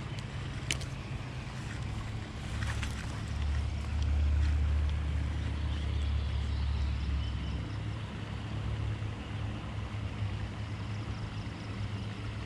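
Low rumble of wind buffeting the action camera's microphone, swelling for a few seconds in the middle, with one sharp click under a second in.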